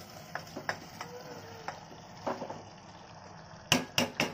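Cut beans and potato pieces tipped from a steel bowl into a steel pressure cooker, with light clicks of a steel spoon scraping them out. Near the end, three sharp metallic knocks come in quick succession as the spoon strikes the steel vessels.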